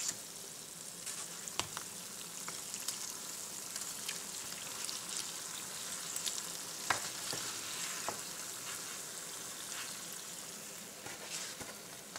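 Yeast-dough ring doughnuts deep-frying in oil over medium heat: a steady, fairly faint sizzle. A few sharp clicks come as a wooden stick turns them in the pan.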